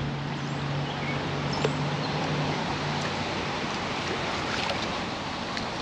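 Steady rush of flowing creek water, with a few faint bird chirps and small clicks over it and a low hum that stops about three seconds in.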